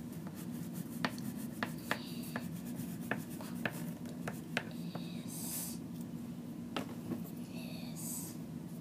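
Handwriting on paper: a series of light ticks and taps, then two longer scratchy strokes about halfway through and near the end, over a steady low hum.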